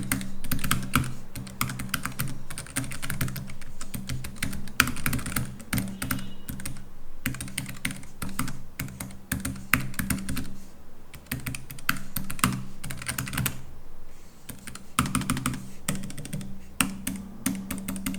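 Rapid typing on a Keychron K3 V2 low-profile mechanical keyboard with Keychron optical red linear switches, a dense run of keystroke clicks broken by brief lulls about 7, 11 and 14 seconds in.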